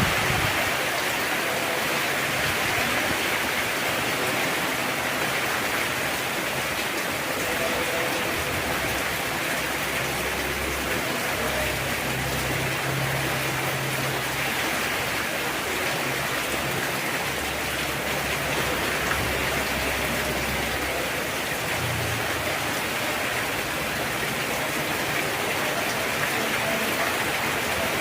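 Heavy rain falling steadily, an even, unbroken hiss of rain on surfaces.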